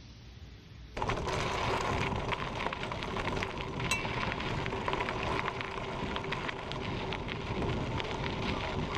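Mountain bike ridden along a dirt-and-gravel trail, heard from a camera on the handlebars: wind buffeting the microphone over tyres crunching on the trail surface and the bike rattling with many small clicks. It comes in suddenly about a second in, after faint background.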